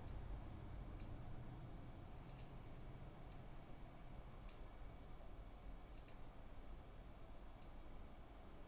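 Computer mouse button clicking: about seven short, sharp clicks at irregular intervals, some in quick pairs, as objects are selected and dragged. A faint low hum of room tone sits underneath.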